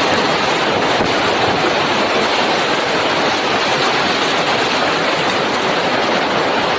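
Steady, loud rushing of a storm's heavy rain and wind.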